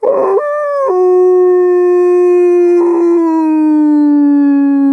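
One long, loud canine howl. It starts higher, drops a step in pitch about a second in, then holds a low note that slowly sinks.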